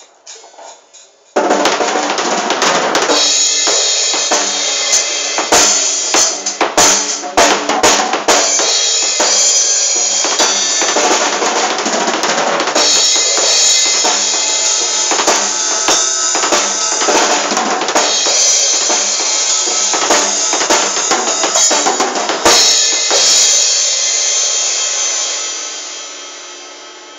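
Yamaha acoustic drum kit played in a steady groove of bass drum, snare and cymbals, with a constant wash of cymbals. The playing starts suddenly, and near the end it stops on a loud cymbal hit that rings out and fades.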